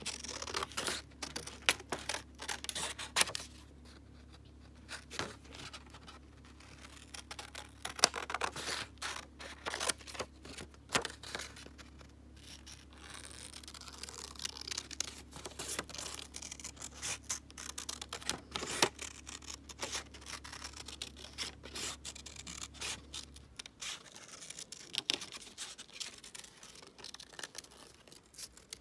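Small children's scissors snipping through thin printed card, a quick irregular run of crisp cuts with short pauses between them. A steady low hum underneath cuts out about three-quarters of the way through.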